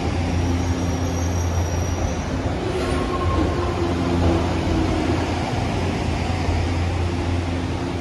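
Electric passenger train running past along a station platform: a steady low rumble with a faint hum over it.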